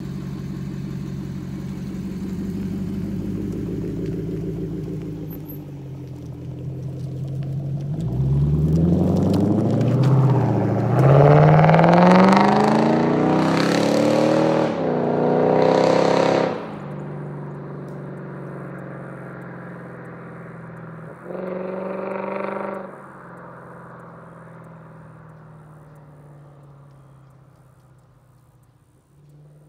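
Lexus IS F's V8 with an RR Racing aftermarket exhaust idling steadily, then accelerating hard away, its pitch climbing and dropping back several times as it shifts up through the gears. After it lifts off there is one more brief burst of revs, and the sound fades away into the distance.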